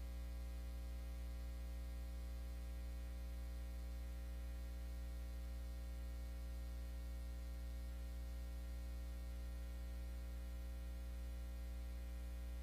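Steady low electrical hum with faint static hiss, unchanging throughout: dead air on the stream's audio feed.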